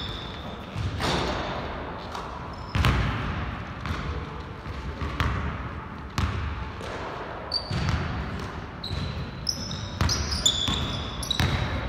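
Basketball dribbled on a hardwood gym floor: irregular, echoing bounces about once a second, with brief high-pitched sneaker squeaks, more of them in the second half.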